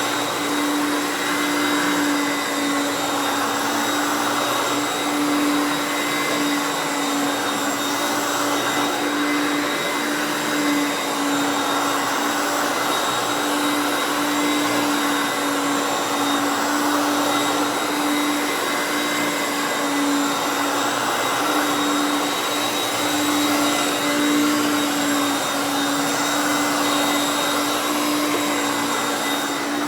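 Hoover Concept One U3101 upright vacuum running steadily and a bit loud. Its 5.6-amp motor gives an even hum with thin high whines above it.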